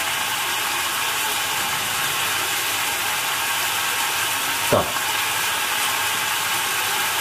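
Food sizzling steadily in a frying pan on a gas stove, an even hiss, with a single short knock a little past halfway.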